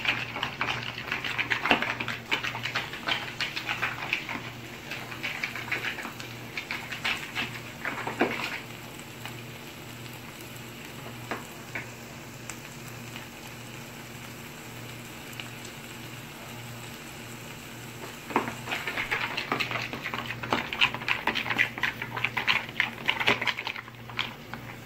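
Kitchen handling noise: rustling and clicking for the first several seconds, then a quieter stretch with a faint steady hum. Near the end comes a spoon scraping and stirring a thick sauce in a bowl.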